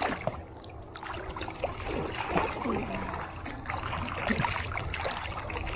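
Pool water sloshing and lapping close to the microphone as a swimmer moves about, with small splashes.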